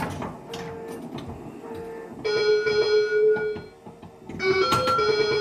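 Bally Cybernaut pinball machine's sound board playing electronic beeping tones, with two louder bursts of layered tones about two and four and a half seconds in and short clicks in between. These sounds are unlike the game's usual 'pew, pew' effects, which the owner takes to mean a ROM for a different game, or a Cheap Squeak board that is not the original.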